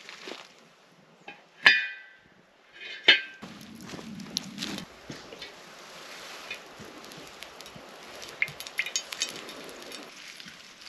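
Two sharp metallic strikes about a second and a half apart, each ringing briefly, followed by a run of lighter clinks and knocks.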